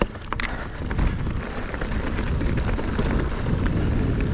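Wind rumble on the microphone and tyre noise from a mountain bike rolling fast over a dirt trail, growing louder about a second in as speed builds. A couple of sharp clicks near the start, typical of the bike rattling over bumps.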